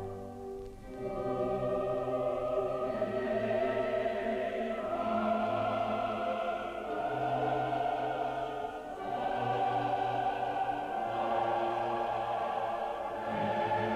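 Choral music: voices holding long chords that shift to a new chord every two seconds or so.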